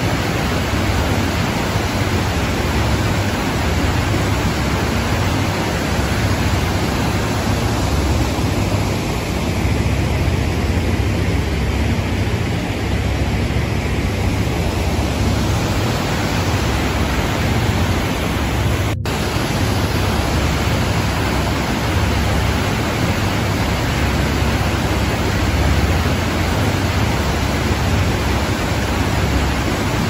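Waterfall cascading over rocks: a steady, dense rush of falling water, heaviest in the low end, with a split-second break about two-thirds of the way through.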